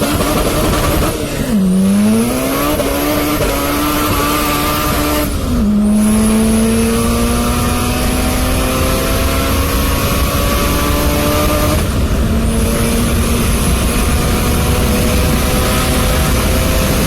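Honda Civic VTEC engine accelerating hard through the gears. Its note climbs steadily and drops at each upshift: about a second in, at about five and a half seconds, and at about twelve seconds. A high whine rises along with it.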